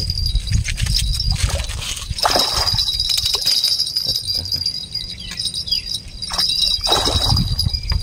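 Wind rumbling on the microphone under a steady high-pitched ringing, with two noisy surges of water splashing as a hooked carp is played on a spinning rod toward a landing net.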